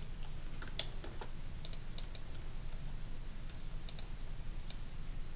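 About eight short clicks of a computer keyboard and mouse, most of them bunched in the first two and a half seconds, over a steady low hum.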